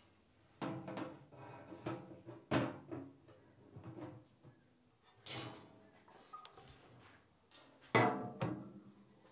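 Sheet-metal halves of a Porsche 911 fuel tank and its baffle box being set down and shifted against each other, giving several separate clanks that ring briefly. The loudest come about two and a half seconds in and near the end.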